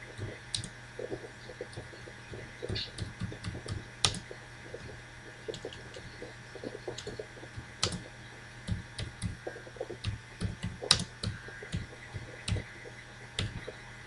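Computer keyboard being typed on: irregular light clicks and taps, with a faint steady hum underneath.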